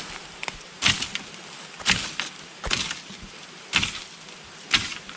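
Five sharp strikes on wood, about one a second.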